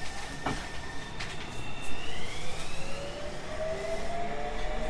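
Tobu 30000 series electric train heard from inside the car, accelerating: from about two seconds in, the inverter and traction motors whine in several tones that rise steadily together over the running rumble. Two sharp clicks come in the first second and a half.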